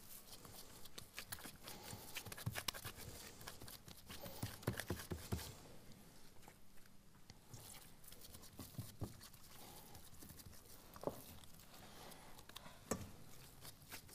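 Gloved hands working soft pumpkin kibbeh dough over a steel bowl: quiet, irregular squishing and patting, with two sharper taps near the end.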